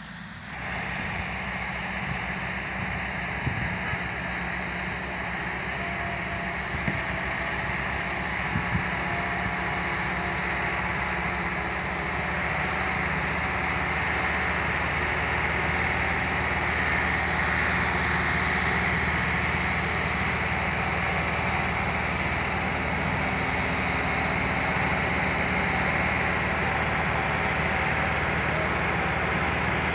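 Massey Ferguson tractor's diesel engine running steadily under load as it hauls a trolley heavily loaded with sugarcane.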